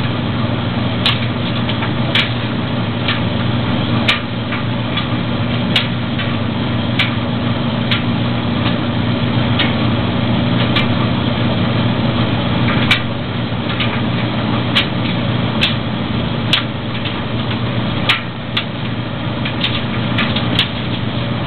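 Maytag DG608 gas dryer running with its burner lit: a steady motor and drum hum with the rush of the running dryer. Sharp clicks come at irregular intervals, about one every second or so.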